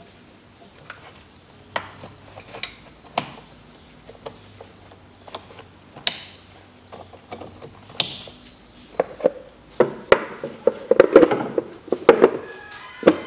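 Hands working plastic wiring connectors and plastic parts in a car's engine bay make scattered clicks, taps and knocks. The handling grows busier and louder about ten seconds in. Short groups of faint high chirping come and go in between.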